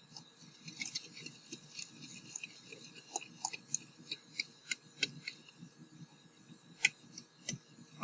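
A utensil scraping and clinking against a stainless steel mixing bowl as thick brownie batter is stirred by hand: irregular light taps over soft scraping.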